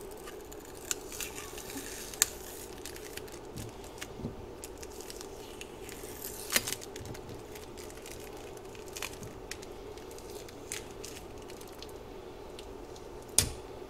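Masking tape being peeled and picked off the cured epoxy on a wine glass's foot: faint crackling and tearing with a few sharper clicks, over a steady low hum, and a knock near the end.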